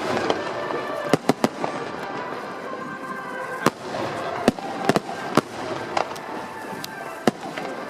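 Aerial firework shells bursting overhead: sharp bangs at uneven intervals, several close together about a second in and more scattered through the rest, over a continuous background din.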